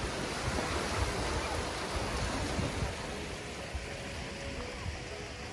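Small ocean waves washing up onto a sandy beach: a steady rush of surf.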